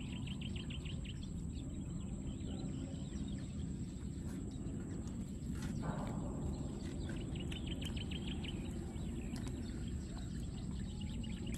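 Outdoor ambience: a steady low rumble and a thin steady high tone, with two runs of rapid high chirps, one near the start and one about seven seconds in.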